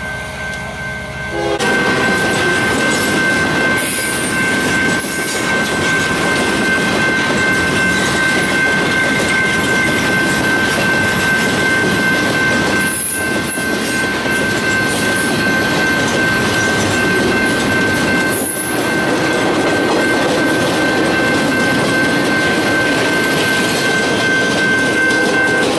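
Freight train of flatcars loaded with rail rolling past close by: a loud, steady rumble and clatter of wheels on the track, with a steady high squeal running through it. It starts quieter, with a locomotive's engine drone, and jumps to the full pass-by sound about one and a half seconds in.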